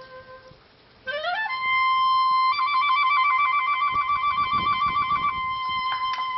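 Solo clarinet played live: a note fades out, and after a short pause the clarinet slides up about an octave into a long high note, trills rapidly on it for about three seconds, then holds it steady.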